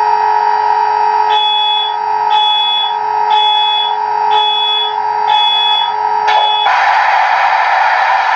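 Diesel locomotive sounds from an O scale SD70's sound decoder, played through its small speaker: a steady tone with a high beep that repeats about once a second, five times, then a loud rushing hiss that starts near the end.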